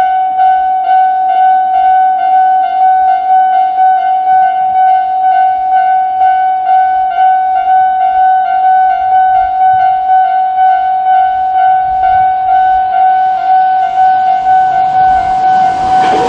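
Japanese railway level-crossing electronic alarm sounding, a shrill, evenly repeating warning tone. Over the last few seconds the rushing noise of an approaching train grows beneath it.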